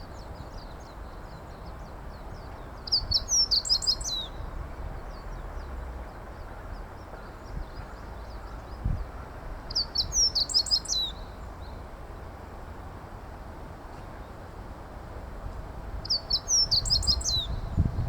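Meadow bunting singing: three short song phrases of rapid, high, tumbling notes, each lasting about a second, spaced about six to seven seconds apart.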